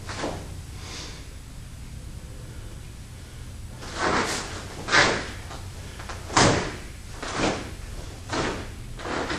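Taekwondo uniform snapping and swishing with each fast strike and block of a pattern: two faint swishes near the start, a pause of about three seconds, then about six sharp swishes roughly a second apart.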